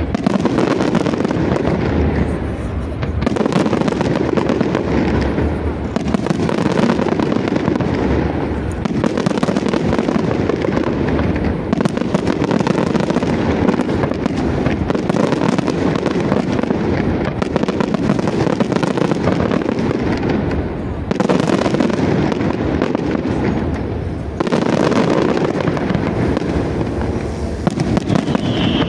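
Loud fireworks display: a dense barrage of shells bursting and crackling, the bangs running together, easing off briefly several times before picking up again.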